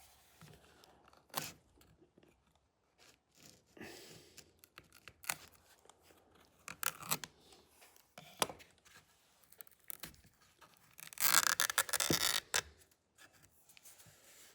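Old tape and twisted baling wire being worked off a shotgun's stock by hand: scattered small clicks and scrapes, then a longer tearing rasp near the end.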